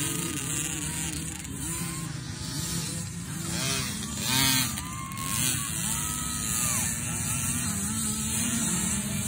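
Several mini motocross bikes racing together, their small engines revving up and down over one another as they ride the track, with one bike coming louder about halfway through.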